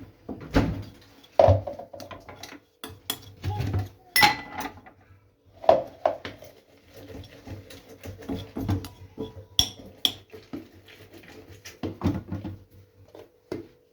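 Kitchen utensils and dishes clinking and knocking in an irregular run of sharp taps.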